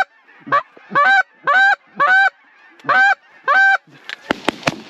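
Goose honks: about seven loud, evenly spaced calls, each sliding up in pitch. Near the end a rapid run of sharp cracks begins.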